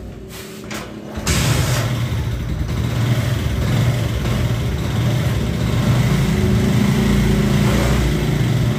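A few faint clicks, then a motorcycle engine starts with a sudden burst about a second in and keeps running steadily at idle.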